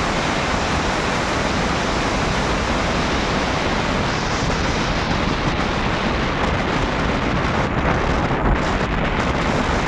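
Steady wind rushing over the microphone of a motorbike moving at highway speed.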